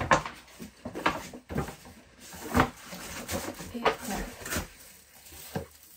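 Brown kraft paper gift bag rustling and crinkling as hands rummage inside it and turn it over, in a string of separate sharp crackles.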